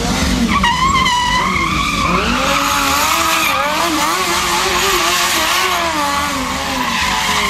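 Sportbike engine held at high revs during a freestyle stunt, its pitch wavering up and down as the throttle is worked, with a hiss over it.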